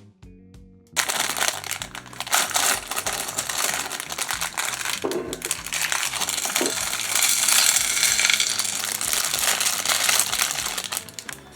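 Loose plastic LEGO bricks clattering in a dense rush of small clicks, as when a bag of pieces is poured out and spread around, with some crinkling of the plastic parts bag. It starts suddenly about a second in and runs for about ten seconds before dying away near the end.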